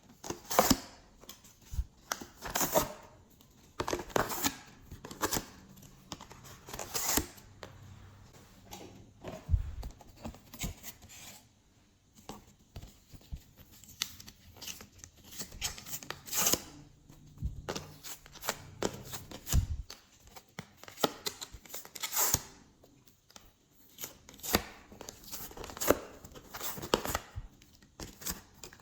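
Glossy slime being worked by hand, with irregular sticky clicks, pops and crackles as it is pressed, stretched and pulled apart.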